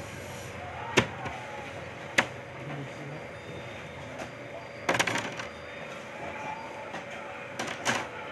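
Bread dough being worked by hand on a bakery work table: sharp knocks of dough and tools on the table, single ones about one and two seconds in and short bursts of several about five and eight seconds in, over a steady hum.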